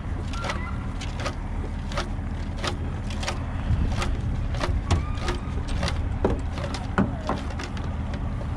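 Boat motor running steadily under way, with frequent short sharp knocks over it.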